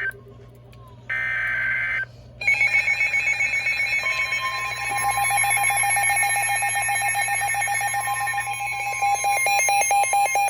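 NOAA Weather Radio alert broadcast: two short bursts of warbling digital SAME header tones, then from about two and a half seconds weather alert radios sounding their alarms together. This is a layered mix of rapid beeping and steady alert tones, with a steady tone near 1 kHz joining about four seconds in, signalling a new warning.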